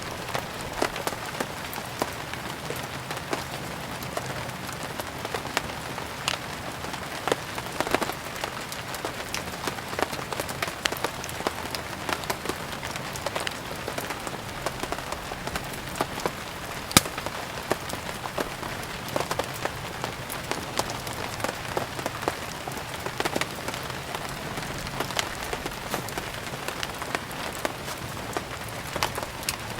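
Steady rain falling, with many scattered sharp ticks and pops throughout; one pop about 17 seconds in stands out above the rest.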